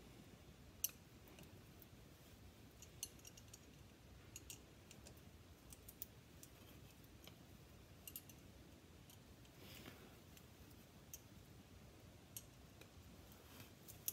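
Sparse, irregular light clicks of hand tools on metal as the slide-hammer clamp plate is bolted to the driveshaft joint, over near silence.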